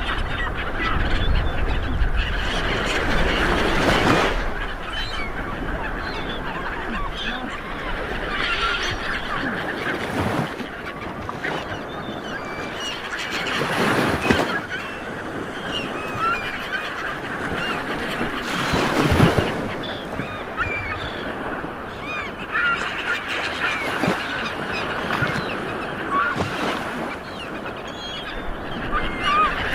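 Sea waves washing against a boat, swelling into louder splashes every few seconds, with many short bird-like calls throughout.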